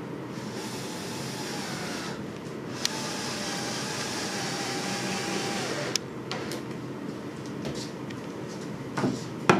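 Cordless drill/driver running, driving a coarse-thread flooring screw through the tongue of a hardwood floorboard without a pilot hole. It runs in a short burst and then a longer run of about three seconds that ends in a click as the screw seats. A few sharp knocks come near the end.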